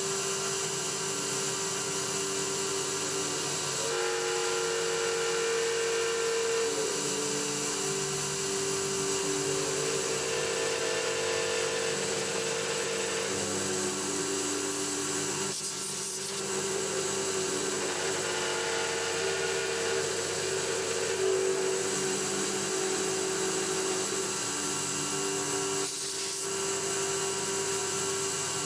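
CNC milling machine's end mill roughing the outside profile of an aluminium block at 2.5 mm depth of cut, a steady cutting noise with ringing tones that step up and down in pitch as the cut moves along, broken by two brief hisses, about halfway and near the end. The machinist calls the roughing pass scary and puts it down to the machine's rigidity issues.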